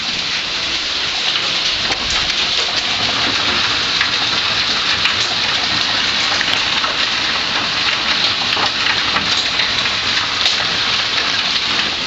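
Hailstones pelting down hard: a loud, steady hiss made up of countless small ticking impacts.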